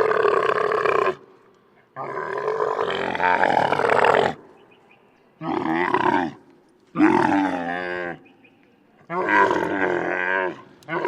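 Camel moaning calls: a string of about five long, wavering bellows, each lasting one to two seconds, with short pauses between them.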